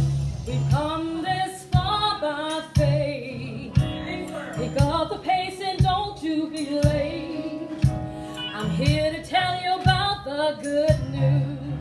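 A woman singing a gospel song solo over guitar accompaniment, with a beat about once a second.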